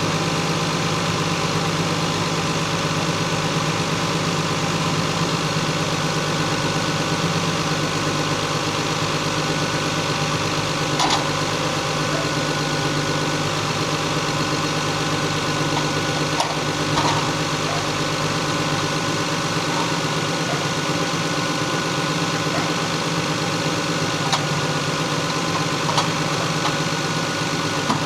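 Stock Lexus GS300's 2JZ inline-six idling steadily, with a few short clicks now and then.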